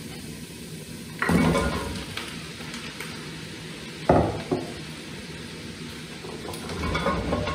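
Diced pumpkin tipped in two batches into a stainless steel pot of onions in hot olive oil, landing about a second in and again about four seconds in, each time with a sudden clatter and a short sizzle as the pieces hit the oil.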